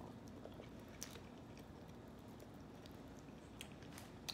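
Faint close-up chewing of French fries, with a few soft, wet mouth clicks.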